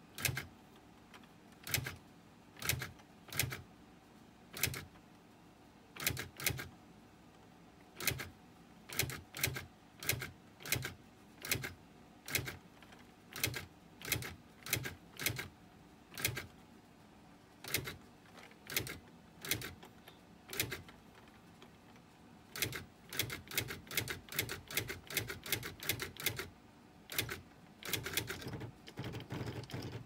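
Brother CE-50 Correctronic daisy-wheel electric typewriter printing one character per key press, sharp clacks at first about one a second, quickening to several a second in the last seven seconds, as each letter key is tested.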